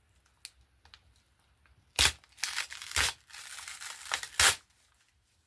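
Paper tearing and crinkling in a few short rips, as glued-down pieces are pulled off the backing paper.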